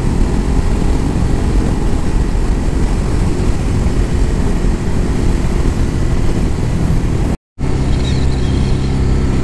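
Motorcycle riding at speed, its engine under heavy wind rush on the microphone. After a sudden cut about seven seconds in, the engine is heard running steadily as an even low hum with less wind.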